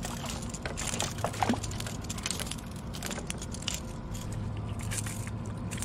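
Scattered, irregular small clicks and knocks of gear being handled on a kayak while landing a fish, over a steady low hum.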